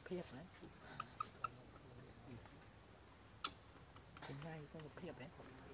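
Insects in the forest chirring in a steady high-pitched drone, faint throughout, with a couple of soft clicks.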